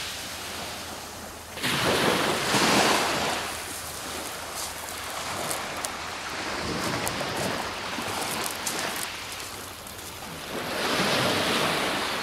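Small sea waves breaking and washing on the beach. Two louder surges, one just under two seconds in and one near the end, rise over a steady wash of surf.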